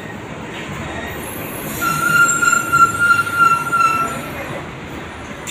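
A high-pitched, steady metallic squeal that starts about two seconds in, lasts about two and a half seconds, then fades, over a constant background hum.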